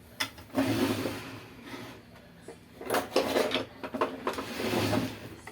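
Hands working with tools and parts: a click, then two stretches of rubbing and clattering, the second longer.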